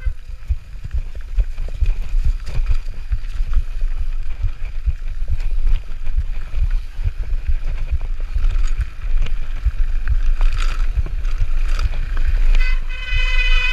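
Mountain bike descending a rough dirt trail: wind rumble on the action-camera microphone with a constant rattle and clatter of the bike and tyres over rocks and gravel. A brief high-pitched whine comes in near the end.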